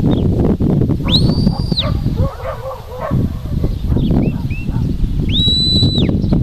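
Two long, level shepherd's whistle commands from the handler to the working sheepdog, each held just under a second, the first about a second in and the second near the end. A sheep bleats briefly between them, over wind rumbling on the microphone.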